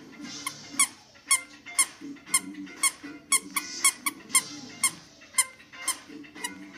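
Short, high squeaks in a steady beat, about two a second, from a squeaky toy being squeezed.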